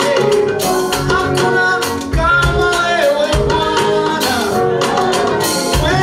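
Live praise band playing an upbeat song with singing over drums and a shaker or tambourine keeping a steady beat.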